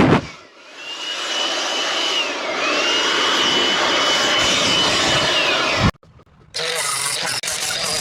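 Two-stroke chainsaw running at high revs. Its pitch drops away just after the start, climbs back, dips once more and holds high. The sound cuts off suddenly about six seconds in, and after a short silence a loud running saw comes back.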